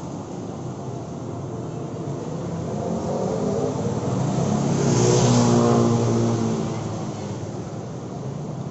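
A motor vehicle passing close by on the street. Its engine sound swells over several seconds, is loudest with a rush of hiss about five seconds in, then drops in pitch and fades as it goes away.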